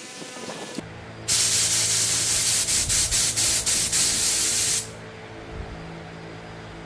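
Loud hiss of a pressurised spray lasting about three and a half seconds, with a few very short breaks, over a steady low hum that starts just before it and keeps going after the spray stops.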